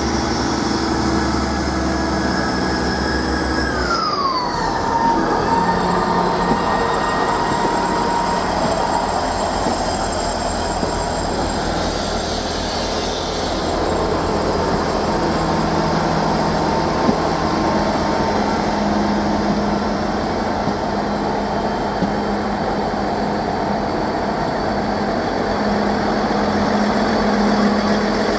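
Class 158 and Class 159 diesel multiple units pulling out and passing close by, their underfloor diesel engines running under power with steady wheel and engine noise. About four seconds in, a whine falls in pitch.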